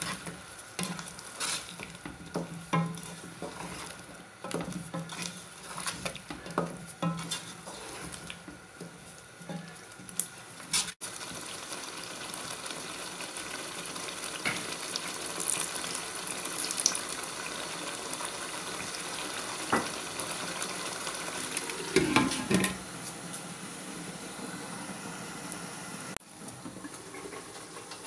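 Wooden spatula stirring and scraping potatoes in thick tomato-onion masala in a nonstick wok, with frying sizzle under the strokes. About eleven seconds in the stirring stops and a steady sizzle of the masala cooking carries on, with a brief clatter a little past twenty seconds.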